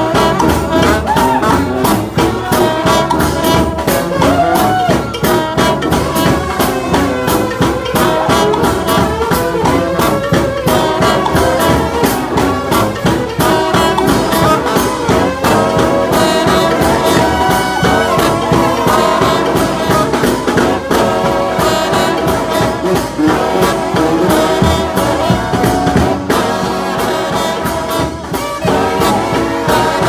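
Trombone shout band playing a hymn loudly, many trombones sounding together close by, over a steady percussion beat.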